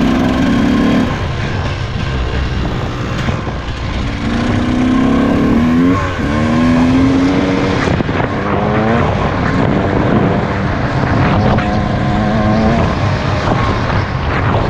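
KTM EXC 200 two-stroke enduro motorcycle engine under load off-road, revving up and falling back again and again as the throttle is worked.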